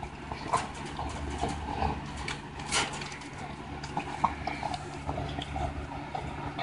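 American bully dog chewing raw pork: irregular wet smacks and clicks of the jaws.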